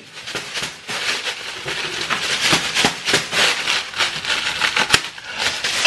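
Thin white plastic bag crinkling and crackling as it is wrung and twisted hard in both hands, with one sharp snap about five seconds in.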